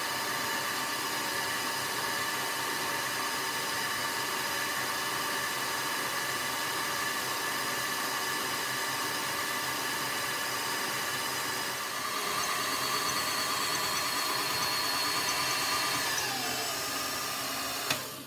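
1979 Kenwood Chef A901E stand mixer running on speed one, its motor whining steadily as the flexi-beater creams fat, sugar and honey. It grows louder about twelve seconds in, then its whine slides down as it is switched off and winds to a stop near the end.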